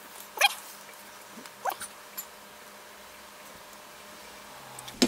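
Two short squeaky animal calls about a second and a quarter apart, each sliding quickly down in pitch.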